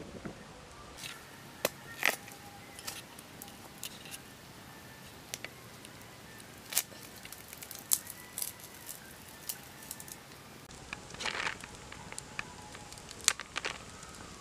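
Knife prying and splitting open a charred bamboo tube of rice cooked inside it: scattered sharp cracks and splintering snaps, with a longer rasping tear of bamboo in the later part.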